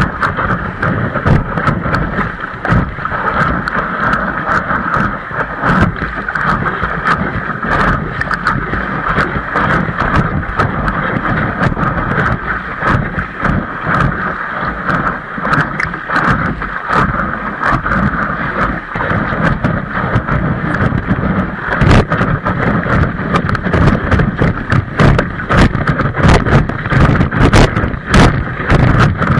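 Wind buffeting the microphone during a windsurfing session, with frequent knocks and rattles.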